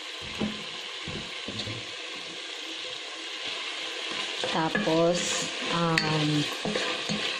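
Chicken pieces and sliced onion sizzling steadily as they fry in oil in a pot, with a spatula knocking and scraping in the pot as they are stirred, a few soft knocks in the first couple of seconds.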